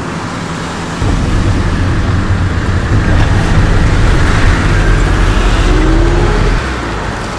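Car driving along a street: steady engine and road noise with a strong low rumble, louder from about a second in until shortly before the end.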